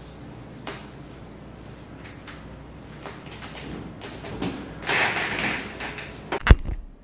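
Rustling and creaking as a client's leg and hips are moved on a padded massage table, with scattered small knocks, louder about five seconds in. Near the end comes one sharp thud.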